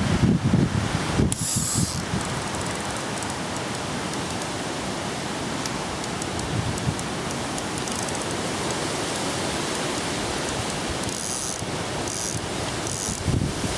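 Wind buffeting the microphone over a steady rush of noise, with short bursts of a fishing reel clicking, once about a second in and three times near the end, as a hooked fish is played.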